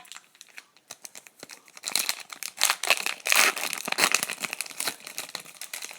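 Foil wrapper of a hockey card pack crinkling as it is torn open. A few light handling clicks come first, then dense crinkling from about two seconds in.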